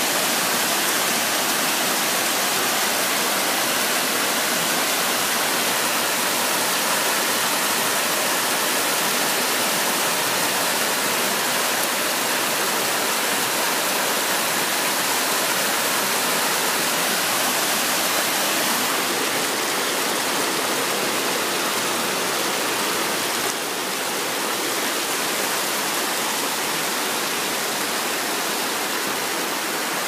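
Small creek waterfall pouring over layered rock ledges: a steady rush of falling water, a little quieter about two-thirds of the way through.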